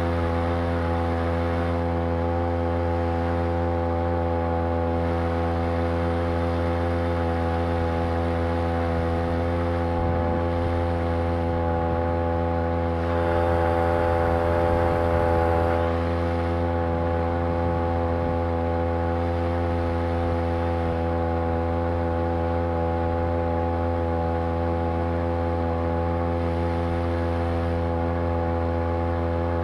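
Two-stroke Champion T516 trimmer engine, converted into a roughly 2 hp outboard on a Sailor 2.0 lower unit, running at a steady speed under load while driving the boat. It gets slightly louder for a few seconds around the middle.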